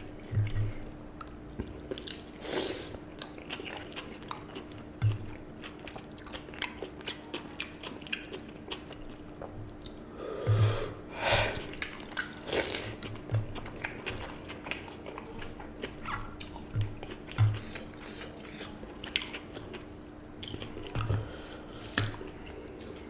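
Close-up eating sounds: chewing and mouth smacks with scattered short wet clicks, as a hand squishes and mixes watery fermented rice (panta bhat) and mashed bhorta.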